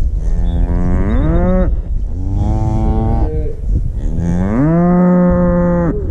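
A calf held in a cattle chute bawling three times. Each call rises in pitch and then holds; the last is the loudest and longest, about two seconds.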